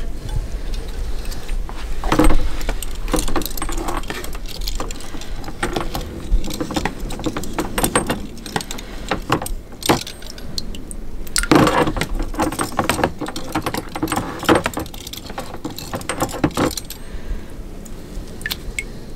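Small zinc-nickel plated steel fasteners jangling and clinking against one another as they are handled, in repeated bursts of clinks, loudest about two seconds in and again around twelve seconds, over a steady low hum.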